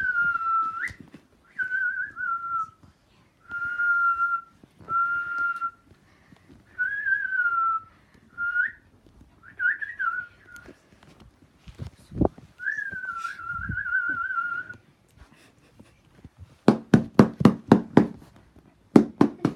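A person whistling a series of short phrases near one pitch, some held steady and some wavering or gliding, with pauses between them. Near the end comes a quick run of sharp taps or claps, about four a second.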